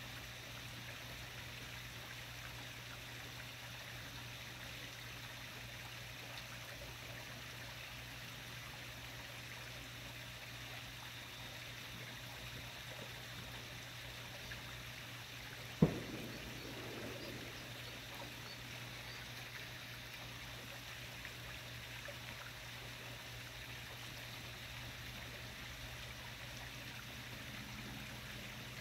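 Faint, steady night-time background: an even hiss over a low steady hum, broken once about sixteen seconds in by a single sharp click or knock.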